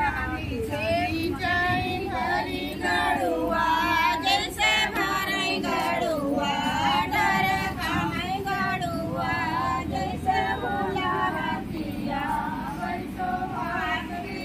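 Female voices singing a song together.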